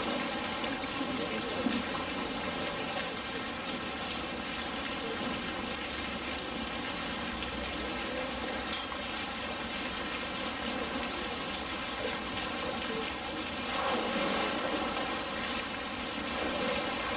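Steady rush of running water, as in a pool's inflow or waterfall, with a light knock about two seconds in.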